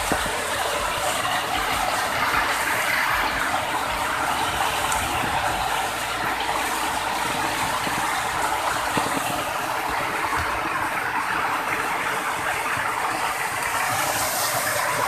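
Waterfall water rushing steadily, an even hiss that holds at one level throughout.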